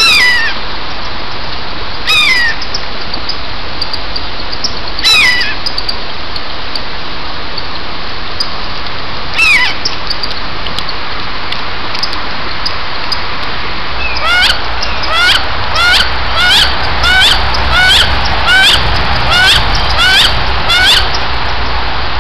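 Wood duck hen crying, each cry a quick falling call: a few single cries spaced seconds apart, then a rapid run of about two a second over the last several seconds, over a steady hiss.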